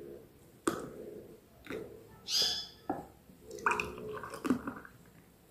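Frothy pineapple juice poured from a cooking pot into drinking glasses, glugging and splashing in a string of separate gurgles, the loudest about two seconds in.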